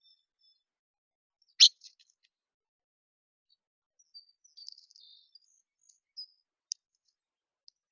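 Small songbirds chirping: one loud, sharp chip about a second and a half in, then faint high twittering and a few short chips near the end.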